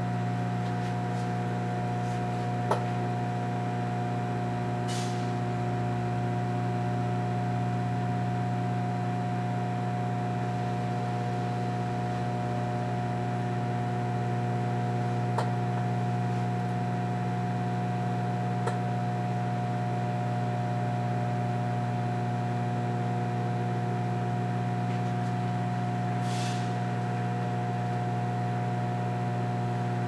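Frigidaire FFCM1134LS countertop microwave running on a cooking cycle: a steady, even hum with a constant tone over it. A few faint ticks and two brief hisses come through.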